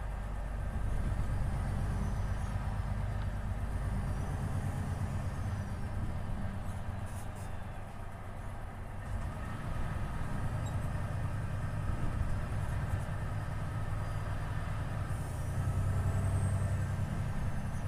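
Volvo FH 500 truck's 13-litre six-cylinder diesel running on the move, a low steady drone that eases off about eight seconds in and then builds again. Faint whistles rise and fall in pitch above it, with a brief hiss about seven seconds in.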